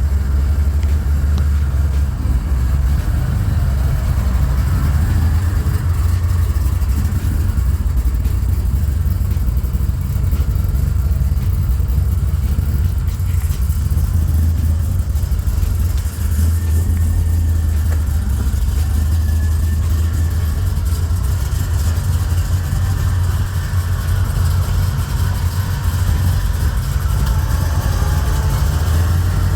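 Big-block 572 cubic-inch Hemi V8 of a 1973 Plymouth Cuda running steadily, its exhaust note deep and loud.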